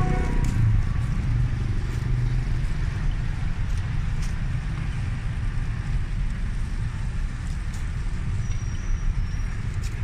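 Steady low rumble of outdoor background noise, with a few faint clicks and a brief high whistle near the end.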